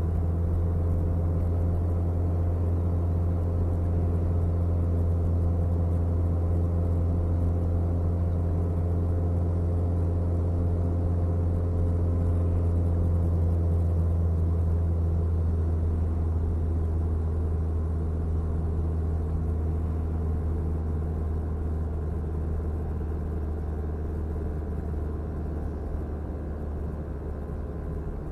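Car driving at a steady speed, heard from inside the cabin: a steady low engine and road drone that gets a little quieter near the end.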